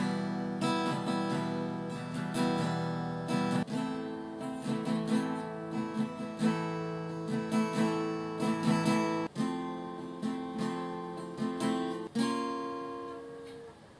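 Background music: acoustic guitar plucked and strummed, fading out near the end.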